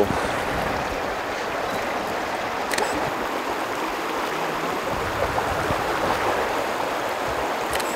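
Shallow, rocky stream rushing steadily over stones.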